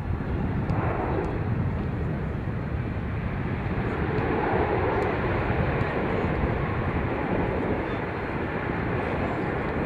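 Steady outdoor background rumble with no clear single source, swelling slightly about halfway through.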